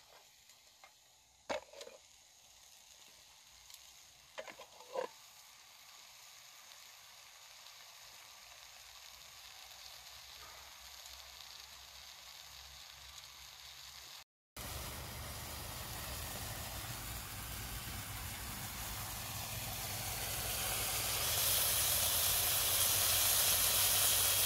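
Chicken of the woods mushroom pieces frying in steak juices in a pan on a log stove, sizzling steadily, with a few light clicks of a utensil against the pan in the first five seconds. After a brief dropout about halfway, the sizzle is much louder and grows louder still near the end.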